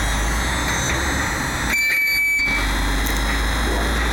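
Hydraulic climbing unit of a Raimondi tower crane running steadily as the telescoping cage jacks the crane up, a low hum under a noisy haze. About two seconds in the hum drops out briefly and a short high tone sounds.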